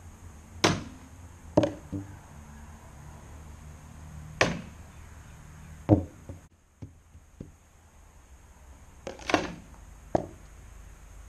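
A run of sharp plastic knocks and thwacks, about seven in eleven seconds, the loudest about a second in, at four and a half and six seconds, and just after nine seconds: thrown frisbees striking a basketball hoop's backboard and stand.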